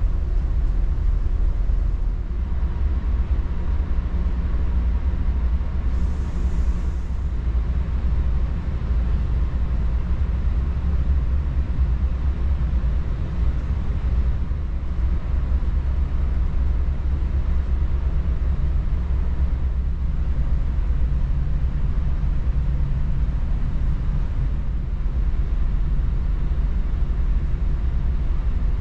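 Steady low drone of a large ferry's engines and machinery heard from inside the ship, unchanging throughout, with a brief hiss about six seconds in.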